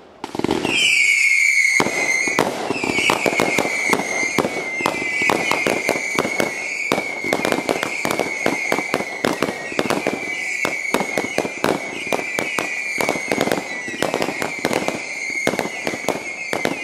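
Fireworks finale: a dense barrage of bursting shells and sharp crackling reports, many a second, over a continuous high whistle that keeps sliding down in pitch and levelling off. The barrage starts suddenly about half a second in.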